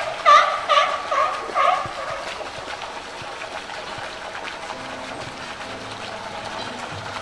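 Four short, loud pitched calls in quick succession in the first two seconds, followed by steady background noise.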